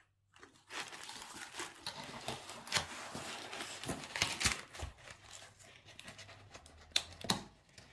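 Paper and packaging being handled, a continuous rustling and crinkling with a few sharper crackles, the loudest near the end.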